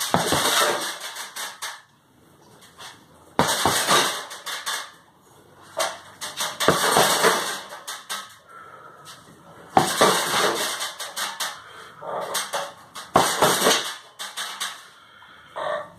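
Gloved punches landing on a hanging heavy bag in about five flurries of rapid blows, with short pauses between them.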